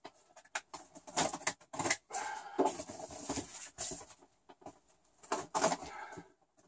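Large cardboard box being turned and tilted on a desk: irregular scraping and rustling of cardboard and packing tape, with a few short knocks and quiet gaps between them.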